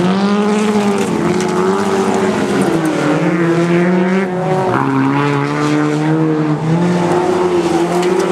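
Folkrace (jokkis) cars racing on a dirt track, engines running at high revs. The engine pitch climbs and then drops sharply every couple of seconds as the drivers change gear, with more than one engine heard at once.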